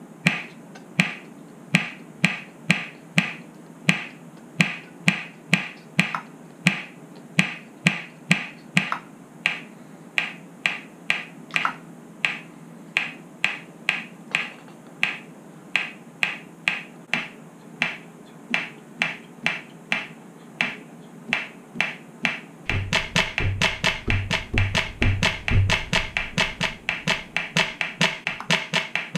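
Roland HandSonic electronic hand-percussion pad played with the hands on its cajon sounds: a steady flamenco bulerías rhythm in 12/8 of sharp, even strikes. About three-quarters of the way through, the playing becomes denser and louder, with a deep bass hit added.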